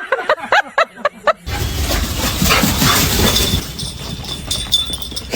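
A quick run of short, pitched animal calls, about seven in a second and a half, then an abrupt change to steady noise with fainter calls.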